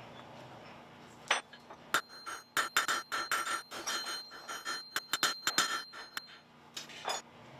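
Blacksmith's hammer striking metal on an anvil: a fast, uneven run of blows, several a second, each with a clear metallic ring. The blows start about a second in and stop shortly before the end.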